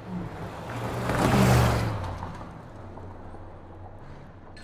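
A vehicle sound swells to a peak about one and a half seconds in and then fades away, like a car driving past.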